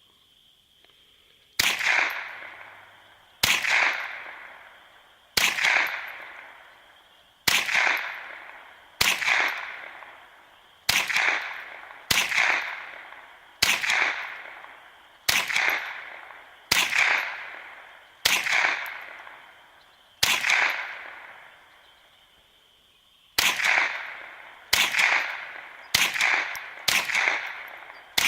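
ISSC MK22 semi-automatic .22 LR rifle firing single shots, about seventeen in all, each with an echo that fades over about a second. The shots come every one and a half to two seconds, stop for about three seconds, then come faster, about one a second, near the end.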